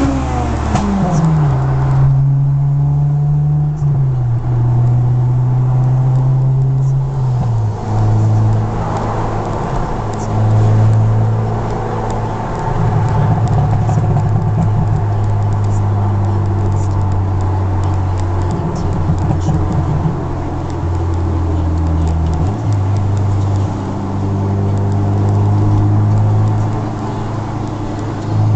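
Honda Accord Euro R's K20A four-cylinder engine through a J's Racing exhaust, heard from inside the cabin while driving. The revs fall about a second in, then the drone holds at a series of steady pitches that step down and back up as it is driven through the gears. There are stretches of rough crackle from the exhaust on the pop-and-crackle map.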